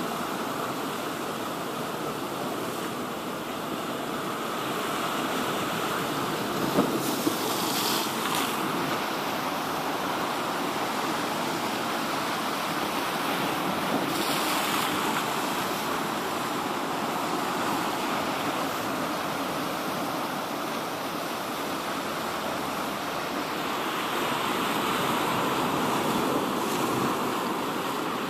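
Sea surf washing onto the shore in steady swells, with a short sharp sound about seven seconds in and a few brief louder splashes.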